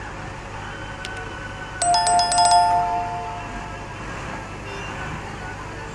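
Subscribe-button overlay sound effect: a faint click, then a notification bell ringing briefly about two seconds in and fading within a second, over steady background music.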